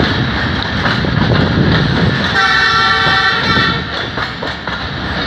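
Passenger coach running along the track with steady wheel and running noise, heard from the open doorway. Around the middle a train's air horn sounds once, a steady chord lasting about a second and a half.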